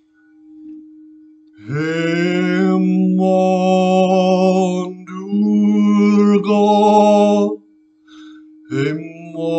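Crystal singing bowl of citrine-infused quartz ringing one steady pure tone, with a man singing long held notes over it: two long phrases starting about two seconds in, a short gap where only the bowl sounds, then another phrase beginning near the end.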